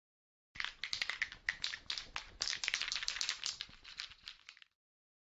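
A rapid, irregular run of clicks and crackles that fades out shortly before the end.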